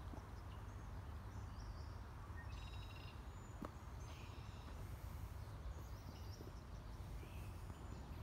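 Quiet woodland ambience: a steady low rumble with faint, short, high chirping calls from small animals scattered throughout, and one small click a little past the middle.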